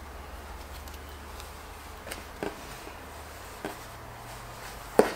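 Hands handling and laying cotton fabric pieces on a wooden tabletop: a few short soft taps and knocks, the loudest just before the end, over a low steady hum.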